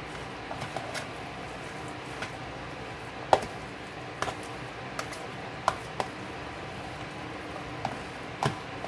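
Fork stirring chicken salad in a plastic container: scattered taps and clicks of the fork against the bowl, about a dozen, the sharpest a little over three seconds in.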